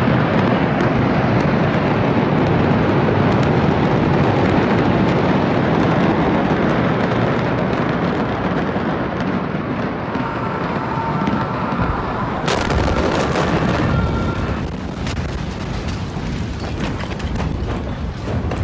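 A large blaze and explosions at a port warehouse: a loud, continuous rumbling roar thick with crackling and popping, turning sharper and brighter about twelve seconds in.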